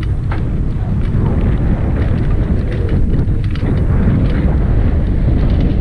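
Steady wind rumble on the camera's microphone while riding a mountain bike fast down a dirt trail, mixed with tyre noise on loose dirt and a few light clicks and rattles.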